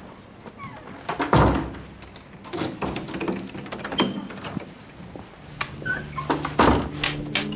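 A door shutting with a thud about a second in, followed by several lighter clicks and knocks. A low, steady music note comes in in the second half.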